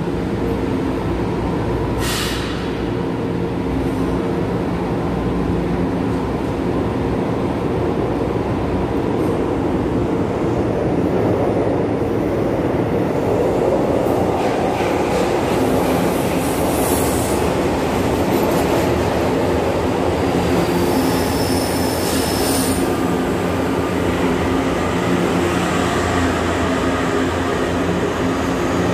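São Paulo Metro J-fleet train at an underground station platform: a steady rumble with a constant hum as the train stands and then pulls along the platform, with a couple of short high-pitched sounds in the second half.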